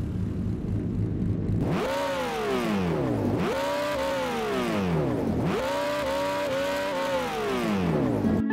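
Recorded engine sound sample for an RC car sound module, a Toyota Supra 3.0-litre straight-six (Castrol TOM'S Supra), played back as a preview. It idles, then revs three times, each rev rising quickly in pitch and falling back, and it cuts off suddenly at the end.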